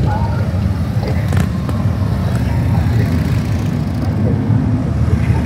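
Engines of a group of motorcycles, Harley-Davidsons among them, running steadily during a motorcycle run.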